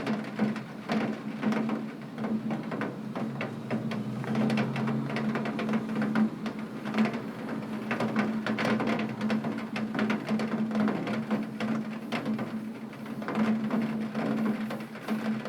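Rain on a tin roof: dense, irregular tapping and pattering of drops on metal sheeting, over a steady low hum.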